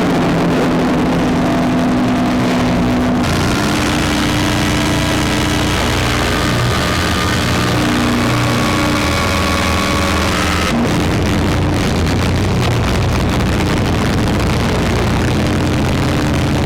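Electronic drone-noise jam: layered sustained synthesizer tones and grainy noise from a looped Krackatone and a Bastl Kastle 1.5 with reverb. The texture shifts about three seconds in, when higher held tones join, and again about eleven seconds in, when they drop out.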